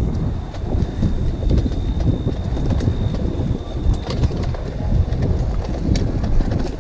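Wind rumbling on the microphone of a trail motorcycle riding along a dirt trail, with a couple of sharp knocks about four and six seconds in.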